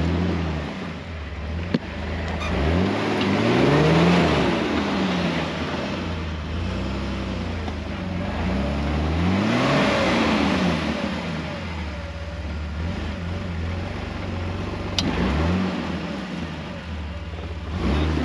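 Jeep Wrangler TJ engine revving up and easing off twice under load on an off-road hill climb, the revs peaking about four seconds in and again midway. A sharp knock or click comes late on.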